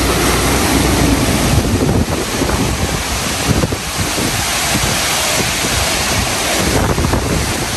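Hurricane-force wind gusting with heavy rain, the wind buffeting the microphone with a loud, steady low rumble.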